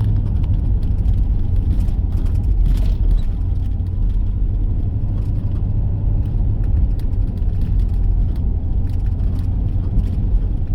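Car driving along a road: a steady low rumble of engine and tyre noise, with faint scattered ticks over it.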